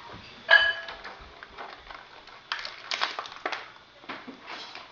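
Clear plastic toy packaging being handled and pulled open: crinkling and crackling clicks, with a short high squeak about half a second in.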